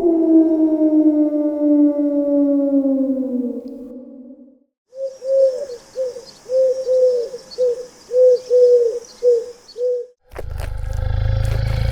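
A sequence of animal calls: first one long pitched call that falls slowly in pitch for about four seconds, then a rapid string of about a dozen short calls, then a loud low roar that starts about ten seconds in.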